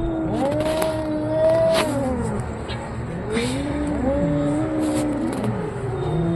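Cats yowling at each other in a standoff: long, drawn-out wavering howls that rise, hold and fall, one overlapping the next.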